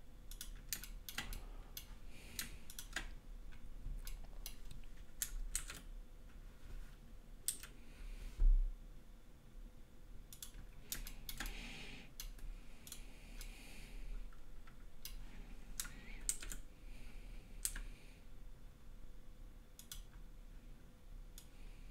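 Irregular clicking of a computer keyboard and mouse, with one low thump about eight and a half seconds in.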